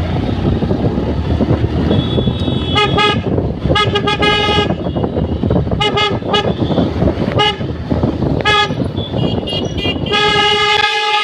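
Horn on a moving motorcycle honked over and over in short toots, with one long blast near the end. A steady rush of wind and road noise runs underneath.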